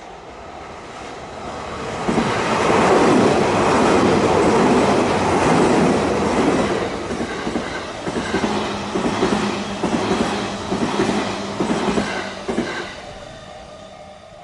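Limited express electric train passing at speed, its wheels clacking over the rail joints. The sound swells about two seconds in and holds. Rapid runs of joint clicks are strongest in the second half, and it fades away near the end.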